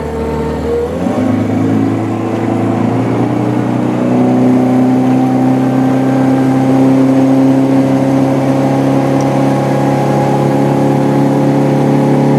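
A 50 hp four-stroke Mercury outboard revs up as the boat pulls away. Its pitch rises over the first second or so, then it runs steadily at speed, getting a little louder about four seconds in.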